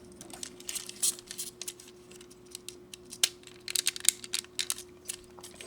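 Small hard-plastic model-kit parts being handled and fitted together: irregular light clicks and taps, a cluster of them about four seconds in, over a steady faint hum.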